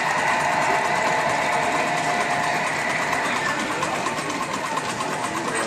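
Small live-steam model engines running, a fast, steady mechanical clatter.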